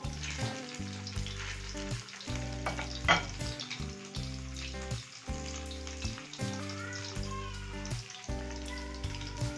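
Chicken pieces frying in hot oil in an aluminium wok, giving a steady sizzle. A wooden spatula stirs them now and then, with one louder scrape about three seconds in.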